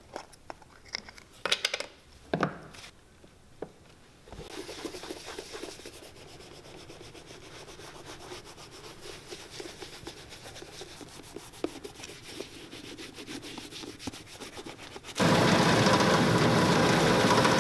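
A few sharp clicks as the lid of a jar of leather conditioner is handled, then a cloth rubbing conditioner into a leather shoe upper for about ten seconds. Near the end a shoe-finishing machine's belt-driven buffing wheel starts, much louder than the rubbing, as the shoe is held against it.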